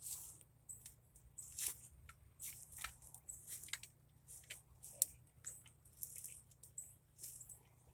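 Irregular crunching and crackling of soil and potato vines as potatoes are dug out of a garden bed, with one sharp click about five seconds in.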